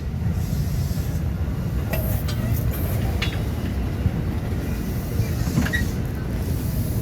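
A train passing close by: a steady, loud low rumble with a few short squeaks and clicks from the wheels and rails.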